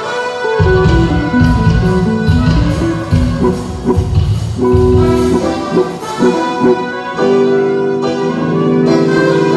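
Live band music at a sound check: a melody over a heavy low beat that comes in about half a second in, settling into held chords near the end.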